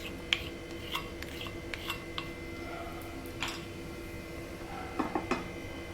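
Spoon stirring soaked sago pearls into a pan of cooked gram flour and milk, with scattered light scrapes and clinks against the pan. A faint steady hum runs underneath.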